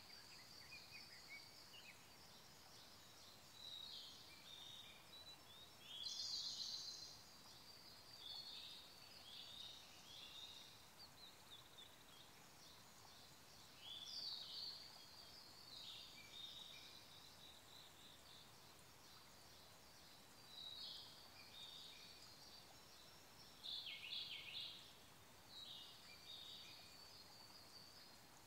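Forest songbirds, Siberian blue robin among them, singing short high-pitched phrases every few seconds, the loudest about six seconds in. Under them runs the faint, steady rush of a small stream.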